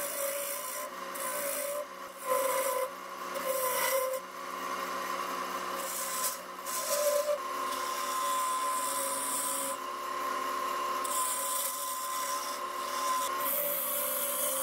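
Carbide-tipped turning tool cutting dense mesquite spinning on a wood lathe: a continuous scraping hiss that swells and eases as the tool is pushed into the wood, over a steady whine from the running lathe.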